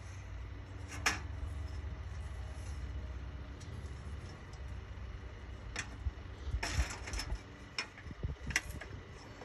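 Light clicks and taps as a handheld circular saw is handled and set against an aluminum fence rail, with the saw not running. A steady low rumble sits underneath. There is one sharp click about a second in, and a cluster of taps in the last few seconds.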